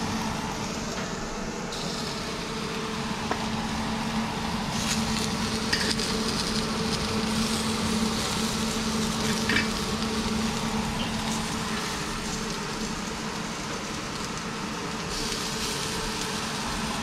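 Pieces of cobia fillet sizzling steadily on a hot, oiled grill pan, with a few short clicks of metal tongs against the grates and a steady low hum underneath.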